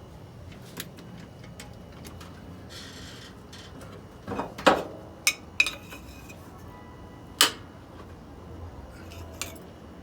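Sharp metallic clinks and knocks of a socket and hand tools being handled, a cluster of them a little before the middle and one more later, over a low steady hum.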